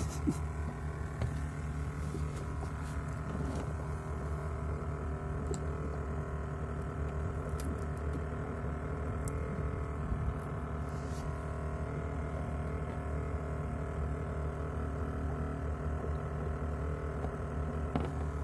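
Steady low mechanical hum, even throughout, with a few faint clicks.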